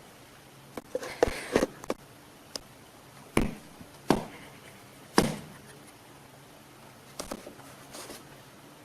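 A series of sharp knocks and thumps, each with a short ringing tail. A quick cluster comes first, then three louder single knocks spaced about a second apart in the middle, and a few fainter ones near the end.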